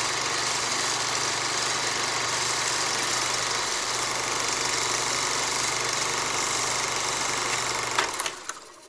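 Film-projector sound effect: a steady mechanical whirring hum with hiss, fading out near the end.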